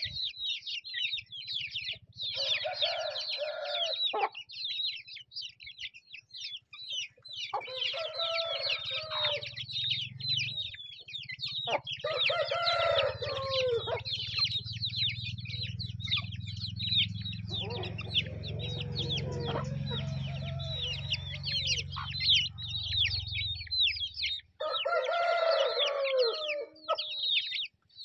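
Bhimavaram aseel chicks peeping nonstop as they feed, with a rooster crowing five times, each crow about two seconds long.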